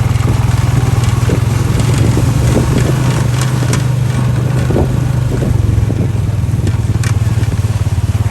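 Motorbike engine running steadily at low revs, with a fast even pulse, and scattered crackling and a few sharp clicks over it.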